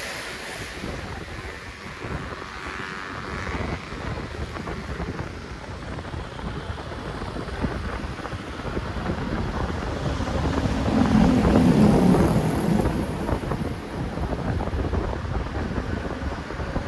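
Wind buffeting the microphone over the engine and road noise of moving traffic, swelling louder for a couple of seconds about eleven seconds in.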